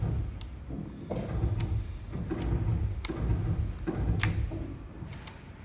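Small metal clicks and clinks from hand-tightening fasteners on the steel mounting bracket under a barber chair seat, coming irregularly about once a second with a sharper click just after four seconds in, over a low handling rumble.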